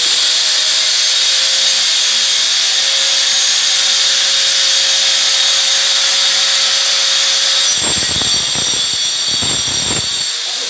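Handheld electric angle grinder cutting into a wall, running steadily at high speed with a high whine. From about eight to ten seconds in the cut turns rougher, with a low rattling judder.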